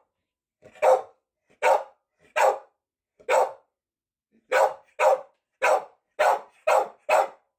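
A pet dog barking repeatedly at a carved wooden dog, about ten short barks with pauses between them, coming faster in the second half.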